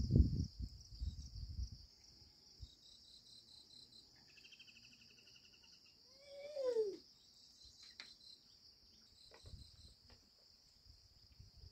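Steady high-pitched chorus of crickets or similar insects. Some low rustling and handling noise comes in the first two seconds, a short rapid trill about four seconds in, and a single falling call at about six seconds.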